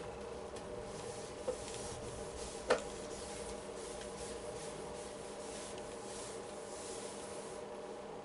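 A sponge rubbing chalk off a chalkboard in repeated back-and-forth wiping strokes, with one sharp tap a little under a third of the way in.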